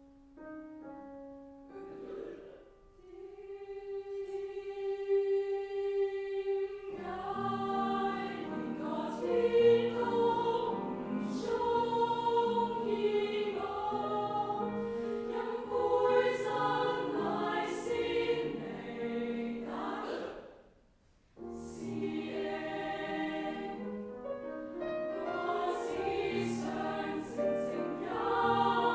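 Choir singing: one long held note, then full many-voiced chords, breaking off briefly about two-thirds of the way through before singing on.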